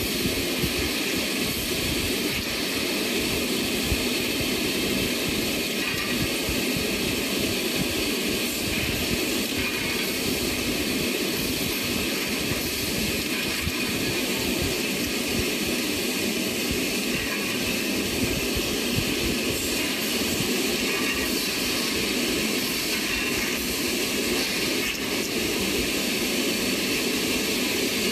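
Mini hydraulic alligator shear's electric motor and hydraulic pump running steadily, giving a loud, even noise that holds without a break.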